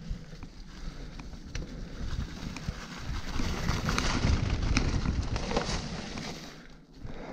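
Mountain bike rolling fast down a dirt trail covered in dry leaves: tyre noise over leaves and dirt with rattling clicks from the bike. It grows louder about three seconds in as the bike picks up speed, and eases off near the end.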